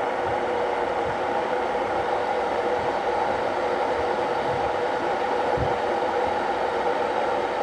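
Ovente KG83B glass electric kettle heating about 1.5 litres of water: a steady rushing rumble with faint low thumps now and then. The water is coming up to a boil but is not yet at a full boil.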